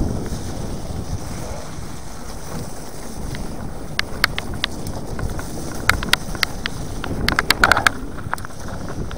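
Orbea Alma hardtail mountain bike rolling along a trail, with wind rushing over the action camera's microphone and a steady low rumble. Scattered sharp clicks and rattles from the bike come over bumps, with a cluster about three quarters of the way through.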